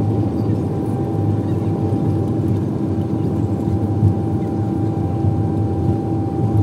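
Cabin noise of an Airbus A320-200 rolling out on the runway after touchdown, ground spoilers up: a steady rumble of engines and wheels with a steady whine over it.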